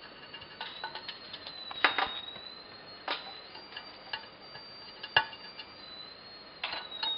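Small machined aluminium pins being set by hand into the holes of an aluminium plate: light, sharp metallic clicks, about five clear ones at irregular gaps of one to two seconds, with fainter ticks between.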